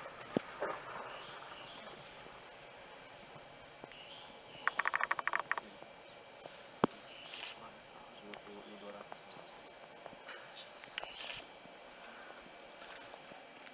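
Rainforest insects droning in a steady, high, even tone. Over it come a few scattered sharp clicks and, about five seconds in, a quick run of about ten ticks lasting a second.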